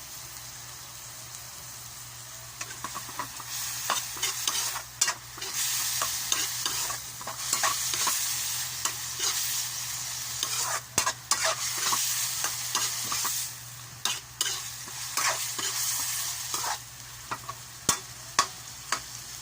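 Shredded chicken frying in hot oil and soy sauce in a pan: a quiet sizzle at first, then from about two and a half seconds in it is stirred and tossed, with the utensil repeatedly scraping and clicking against the pan. The stirring eases off near the end. A steady low hum runs underneath.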